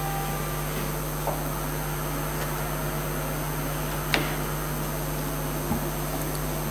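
Steady electrical hum and hiss of a lecture hall's sound system with no one speaking, with a soft knock about four seconds in and a fainter one about a second in.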